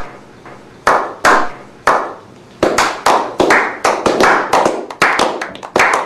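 A slow clap by a few men: single claps about a second apart that speed up into quick, steady clapping.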